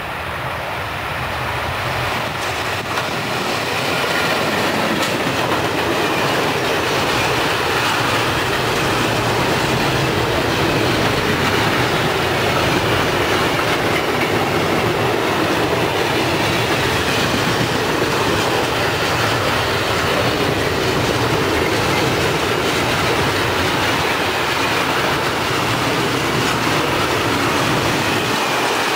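Freight train passing close by, its wagon wheels clattering over the rail joints with a faint, wavering high squeal from the wheels. The noise builds over the first few seconds as the locomotive arrives, then holds steady as the wagons roll past.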